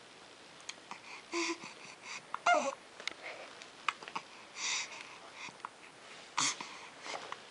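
Hiccups: four short, sharp gasping catches about every one and a half to two seconds, some with a brief squeak of voice.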